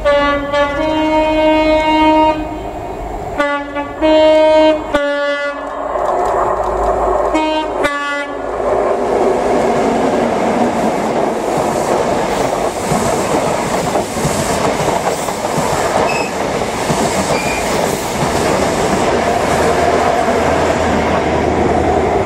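A train horn sounds several blasts of two notes over the first eight seconds. Then an express passenger train rushes through the station at speed, with a continuous roar of wheels on rail.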